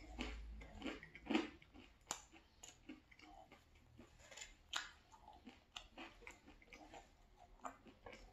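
A person chewing a slice of pepperoni pizza, close to the microphone: irregular crunches of the crisp crust, strongest a little after one, two and nearly five seconds in.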